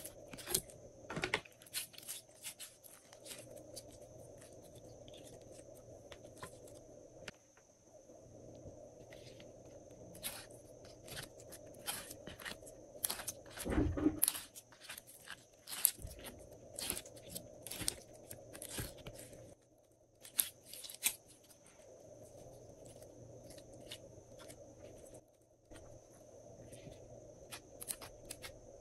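Glossy slime being pressed into and peeled out of a silicone bar mould by hand: sticky crackles and clicks coming irregularly throughout, with a louder squelch about halfway through. A faint steady hum runs underneath.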